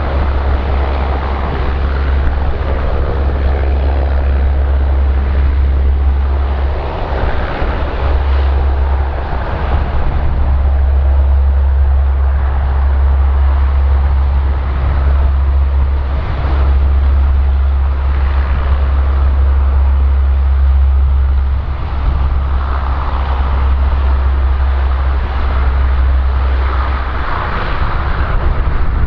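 Lockheed C-130H Hercules's four Allison T56 turboprop engines running, a loud, steady, deep propeller drone that swells and eases now and then.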